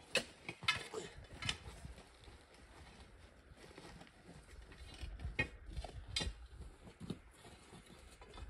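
Steel rock bars knocking and scraping against stone as a crew levers a large rock into place. There is a quick run of sharp metallic knocks in the first second and a half, then a few more spaced out later.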